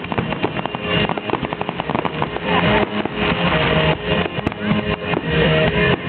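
Music with guitar and drums playing, with fireworks crackling and popping through it.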